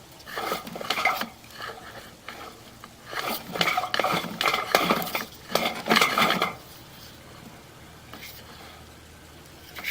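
Sewer inspection camera being pushed up a drain line: metallic clattering and clinking in two bursts, a short one near the start and a longer one from about three to six and a half seconds in, with a brief clink at the end.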